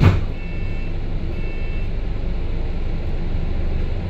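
Double-decker bus running, a steady low engine and road rumble, with a short sharp hiss-thump right at the start. A two-tone electronic beep repeats about once a second and stops about two seconds in.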